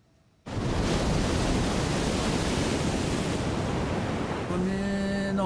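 Steady rush of ocean surf and wind on the coast, cutting in abruptly about half a second in after a moment of near silence.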